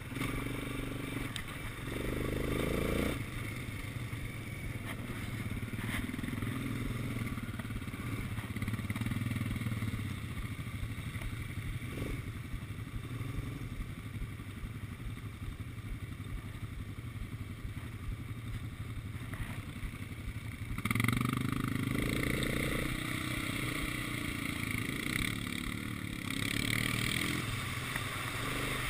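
Quad bike engine running while riding over a dirt track, picking up briefly about two seconds in, settling lower for a long stretch, then louder again from about 21 seconds as the rider accelerates.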